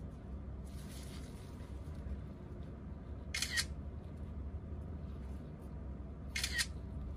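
iPhone 11 Pro Max camera shutter sound, played twice about three seconds apart, once near the middle and once near the end: photos taken in the Camera app to test the restored phone. Each shutter sound is a short double click.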